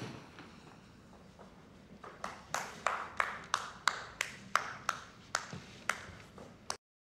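A run of about a dozen sharp taps, roughly three a second, starting about two seconds in after a faint lull, then cutting off abruptly near the end.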